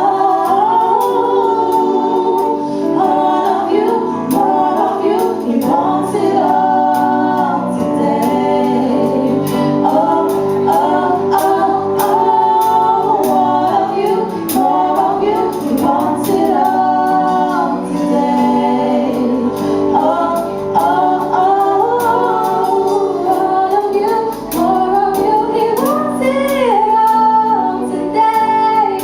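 Gospel choir singing in harmony.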